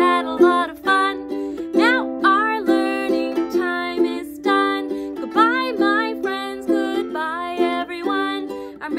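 A woman singing a children's goodbye song to her own steady ukulele strumming.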